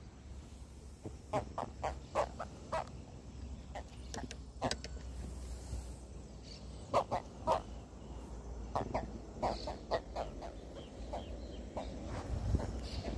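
An amarillo catfish (Pimelodus maculatus), just landed and held on the line, croaking: short clucking grunts in irregular clusters, some in quick pairs, the fish's distress sound out of water.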